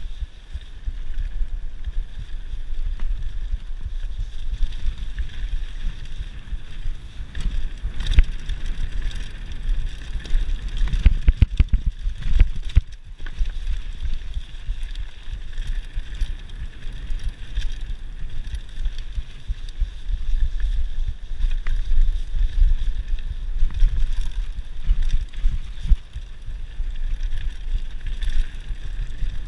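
Mountain bike riding fast down a rocky gravel trail: tyres rolling over loose stones and the bike rattling, under a steady wind rumble on the microphone. About eleven seconds in, a cluster of sharp knocks comes as the bike goes over rough rock.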